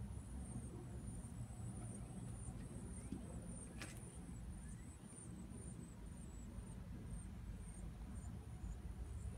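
Outdoor background ambience: a steady low rumble with faint, high-pitched chirps repeating a few times a second over a thin steady high whine, and a light click about four seconds in.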